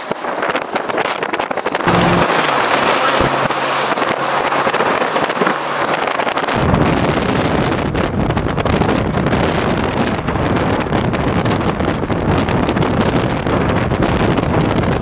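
Strong wind gusting across the microphone, a loud rushing noise that turns into heavy low buffeting about halfway through. For about four seconds from about two seconds in, a low steady hum sits under the wind.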